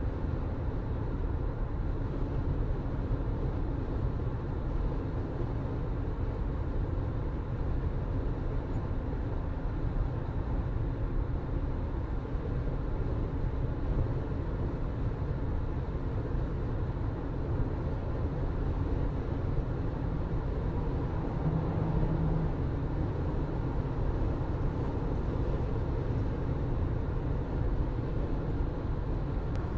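A car being driven at a steady pace: a constant low engine hum and road rumble, with a short low tone about two-thirds of the way through.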